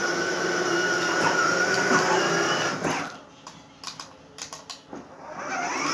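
Electric ride-on toy car's drive motors whining steadily as it rolls forward, cutting out about three seconds in. A few light clicks and taps follow, and the motor whine starts again near the end.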